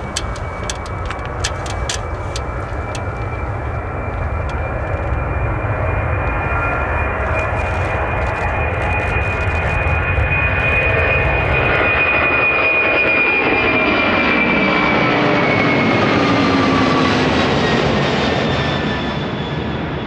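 Fixed-wing airplane passing close by: its engine whine and rushing noise build to a peak, then drop in pitch as it goes past. There are a few sharp ticks in the first seconds.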